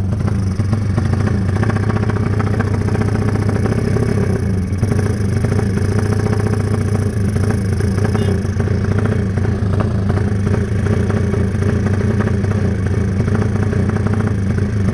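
Modified Honda Tiger motorcycle with a 300cc single-cylinder engine, running steadily at low speed. Its exhaust is loud, described as "kenceng banget" (really loud). The freshly built engine is being run in.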